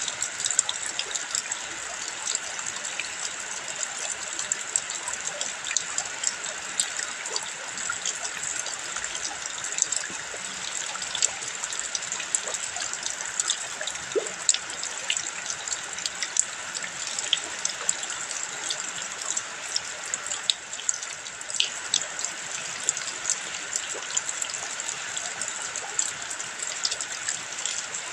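Running water: a steady rushing hiss with many small splashes and drips scattered throughout.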